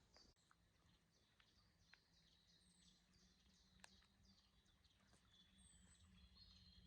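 Near silence with faint birdsong: scattered chirps and a short high whistle repeating every few seconds, over a low steady hum.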